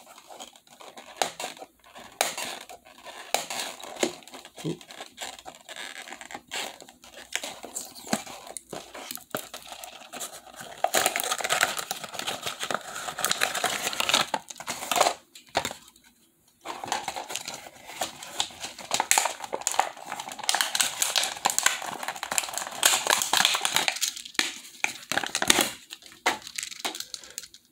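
A small cardboard puzzle box being opened and unpacked: scattered clicks and scrapes from the flap, then long stretches of crinkling packaging, with a short pause about sixteen seconds in.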